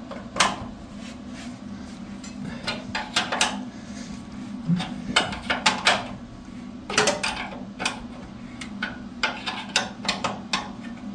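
Irregular clattering and knocks of metal objects being handled, over a steady low hum.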